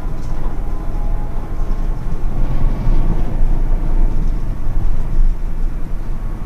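Steady low rumble of engine and road noise heard from inside a moving bus.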